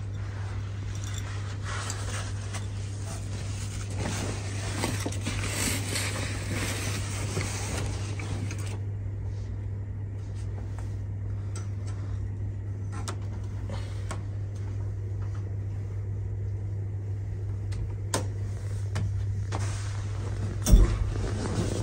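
Rustling of sheets and bedding as a person climbs into a capsule-hotel bed, over a steady low hum, for the first eight seconds or so. After that the hum carries on with a few sharp clicks, and there is a single thump about a second before the end.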